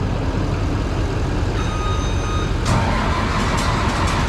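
An old farm machine being started on a jump from another vehicle because its battery is weak. Over a steady engine rumble, a warning beep sounds for about a second, then a sudden burst of engine noise about two and a half seconds in, and the engine keeps running.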